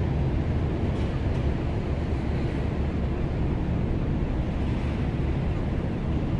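Ship's engines running as the vessel moves out of port: a steady low rumble.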